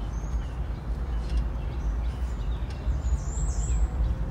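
Steady low rumble of a Yuki Amy electric microcar rolling over a rough dirt road, heard from inside the cabin, with no engine note. Birds outside chirp several times in short, high calls.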